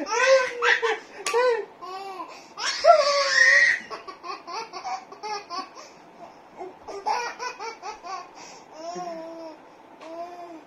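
Baby laughing in a string of high-pitched bursts, loudest in the first few seconds, then in shorter, softer giggles that fade toward the end.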